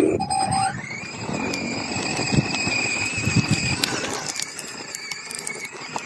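Small mini bike engine revving up in the first second, then holding at steady high revs with a high whine, which fades after about four seconds.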